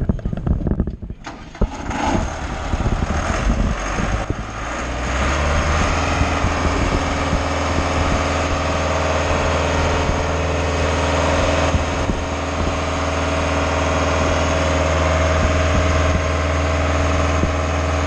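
Schwing BPA750 trailer concrete pump's engine starting up: uneven clattering for the first few seconds, then it settles into a steady low run about five seconds in.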